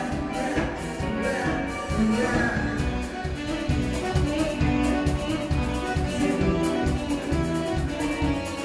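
Live band playing upbeat dance music: a drum kit keeps a steady beat under electric guitar and keyboard.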